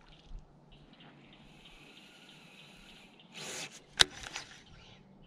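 A baitcasting rod and reel being handled: a faint steady whir of the reel, then a short rush and a sharp click about four seconds in, the loudest sound, followed by a couple of lighter clicks.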